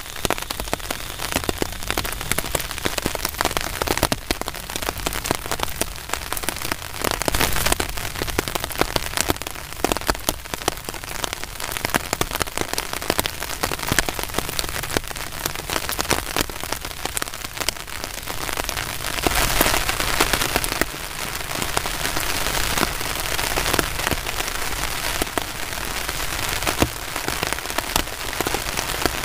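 Heavy rain falling steadily, full of sharp individual drop hits close by, growing louder for a couple of seconds about two-thirds of the way through.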